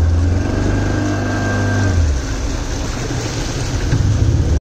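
Motorboat engine running with a low hum that fades about two seconds in, leaving a steady rush of water and wind.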